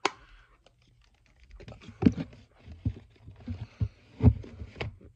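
Irregular clicks, taps and rustling of a CD box set being handled, with sharper knocks about two seconds and about four seconds in.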